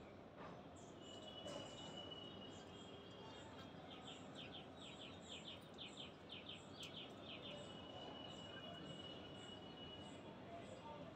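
Faint outdoor ambience of small birds and insects: quick runs of short down-slurred chirps, about three a second, between two long thin high steady notes, over faint evenly spaced high ticking.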